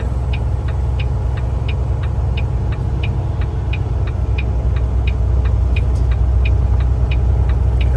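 Car engine running with a steady low rumble, with a light regular ticking about twice a second.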